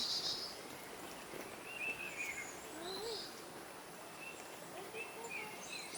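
Forest birds calling: scattered short chirps and quick trilled notes, a few at a time, over a faint steady hiss of forest ambience.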